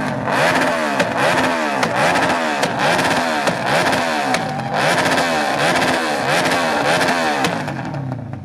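Sport motorcycle engine revved hard over and over, the pitch climbing and dropping about twice a second in quick throttle blips, until the revving stops near the end.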